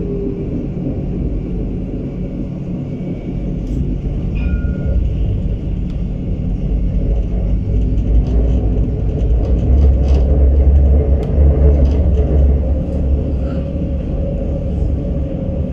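Tram running on its rails: a steady low rumble that swells about eight to twelve seconds in, with two brief faint high tones about four seconds in and scattered light ticks.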